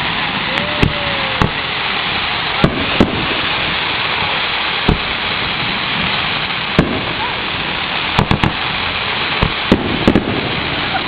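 Consumer fireworks going off: about a dozen sharp bangs at irregular intervals, several in quick runs near the end, over a continuous dense hiss. A short whistle glides up and down about a second in.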